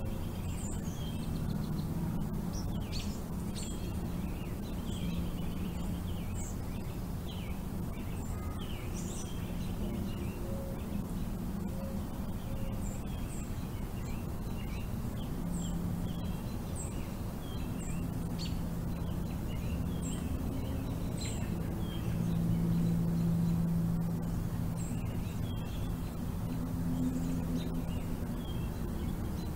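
Songbirds chirping with many short, high calls over a steady low hum that grows louder about two-thirds of the way through.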